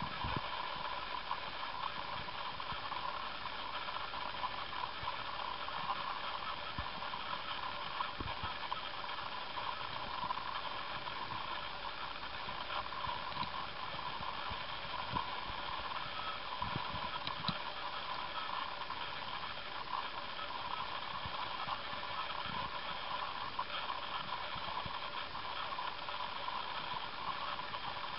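A hamster gnawing a monkey nut (peanut in its shell), with small irregular crunches and clicks over a steady hiss.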